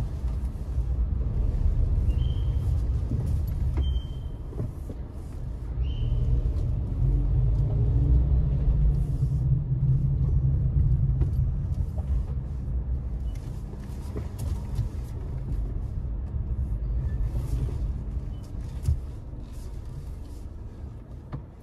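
Car moving slowly through an underground car park: a low, steady rumble of engine and tyres, with three short high squeaks in the first six seconds. The rumble grows quieter over the last few seconds.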